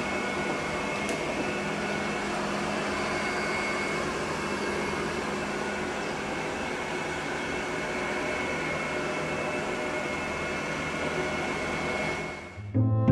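Robot vacuum cleaner running: a steady whir from its motor with a thin high whine over it. It fades out near the end.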